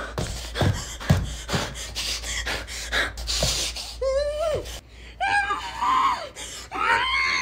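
A cartoon girl's wordless karate-style vocal noises: a quick run of sharp huffs and clicks, then from about four seconds in several drawn-out cries that waver in pitch.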